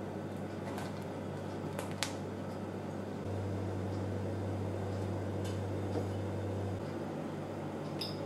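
Steady low hum of room noise, with a few faint clicks and crackles as a knife cuts through the crisp, almond-flaked choux pastry crust and the slice is set down on a plate near the end.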